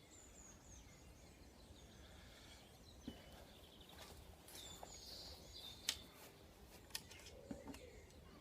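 Near silence, with faint bird chirps in the background and a few soft clicks spread through it.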